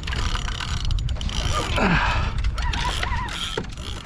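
Fishing reel clicking as its mechanism turns, many quick clicks over a steady low rumble.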